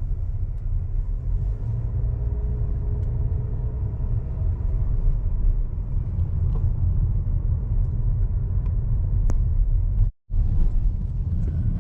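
Car driving: steady low road and engine rumble heard from inside the cabin, cutting out for a moment about ten seconds in.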